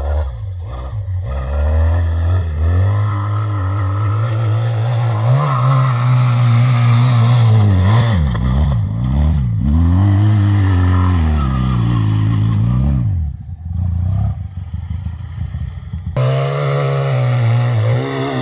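ATV engine revving, its pitch rising and falling repeatedly as the quad accelerates and slows. It drops away briefly about two-thirds of the way through, then picks up again.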